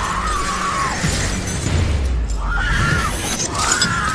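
Glass syringes clattering and crunching as they are dug through in a pit of needles. A voice cries out three times in short strained calls, over music.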